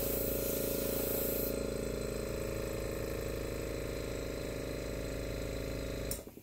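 Small airbrush compressor motor running with a steady buzzing hum. The airbrush hisses out air for about the first second and a half, then stops while the motor keeps running. The sound stops abruptly just before the end.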